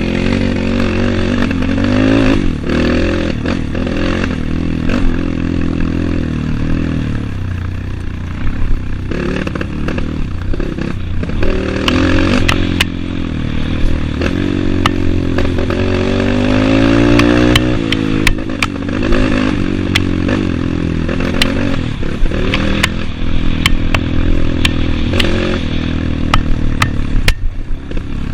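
Trail motorcycle engine running while riding, its pitch rising and falling with the throttle, with a long climb in revs that drops off sharply about two-thirds of the way through. Scattered knocks and rattles throughout the second half.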